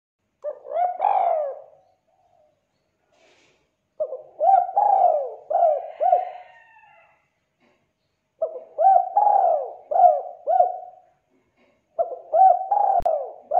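Spotted dove (tekukur) cooing: four runs of several coos each, every coo rising and falling in pitch, with short pauses between the runs.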